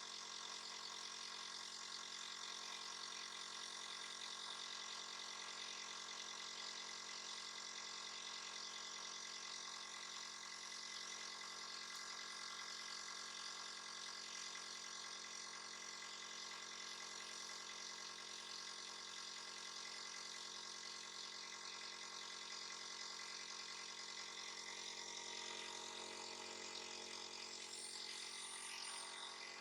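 A small motor running with a faint, steady hum.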